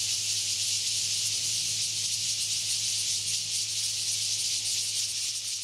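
Steady television-static hiss (white noise) with a low steady hum underneath, the sound that goes with a colour-bar test card.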